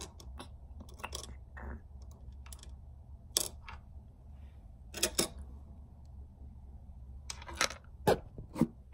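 Scattered small clicks and taps, a dozen or so at uneven intervals with a cluster near the end, over a low steady hum: handling noise close to a handheld camera's microphone.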